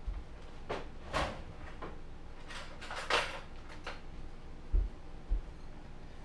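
A few short scraping noises, then two dull knocks close together about three quarters of the way in as a small bowl is handled on the countertop.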